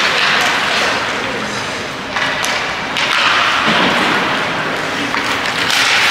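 Ice hockey game sound in a rink: a steady noisy din with a few sharp knocks and voices in the background.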